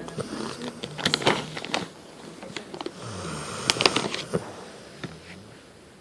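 A cow snoring: noisy breaths with two spells of crackling clicks, about a second in and again near four seconds in, trailing off quieter toward the end.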